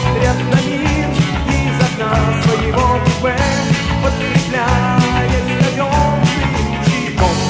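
1980s Russian rock song in an instrumental passage: drums keep a steady beat under bass, with a lead line of bending notes.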